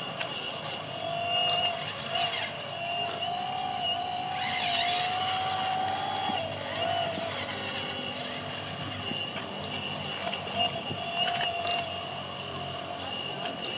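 Hydraulic pump of a radio-controlled Komatsu PC360 excavator model whining steadily, its pitch wavering and rising for a few seconds as the boom and bucket dig. A few sharp clicks come through.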